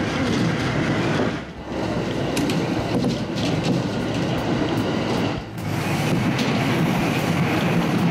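An electric train running along the line, heard from just behind the driver's cab: a steady rumble of wheels on rail with a few clicks about three seconds in. It briefly drops in level twice.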